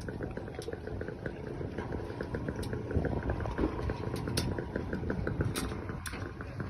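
A boat engine running at low speed with a fast, even ticking beat, as the towing boat comes in slowly.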